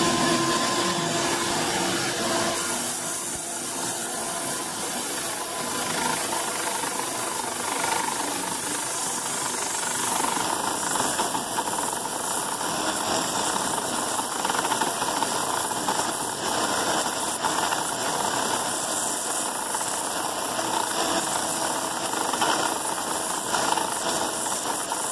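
Bandsaw running steadily, its blade cutting through a briar block to rough out a tobacco pipe's outline, heard as an even hiss.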